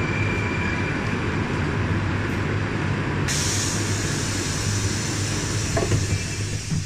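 Rusich metro train standing at the platform: a steady low hum from its equipment, then about halfway through a sudden, steady air hiss from its pneumatic system starts up.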